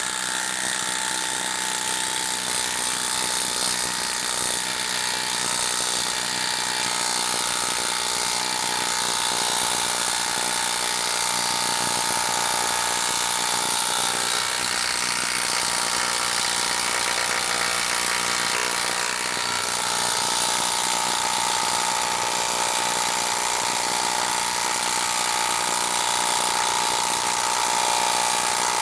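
DeWalt 12V Xtreme brushless impact driver hammering without a break as it drives a 4-inch lag screw into a wood round, with rapid rattling impacts over a steady high whine. It is under heavy load, the lag sinking slowly.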